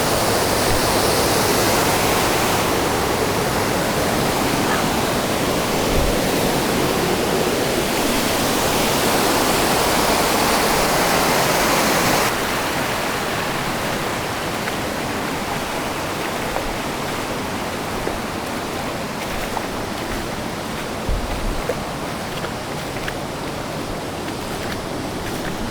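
Waterfall rushing: a steady wash of falling water that drops a little in level about twelve seconds in.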